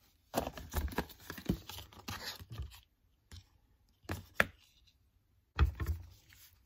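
Gloved hands handling things on a wooden cutting board. There is a couple of seconds of rustling and scraping, then a single knock, then sharp clicks and taps as plastic food containers and a plastic lemon juice bottle are picked up and set down.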